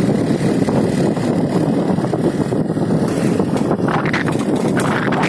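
A motorcycle being ridden, its engine and the wind rushing over the phone's microphone making a steady, dense noise. From about four seconds in, rustles and knocks break in as the phone is swung around.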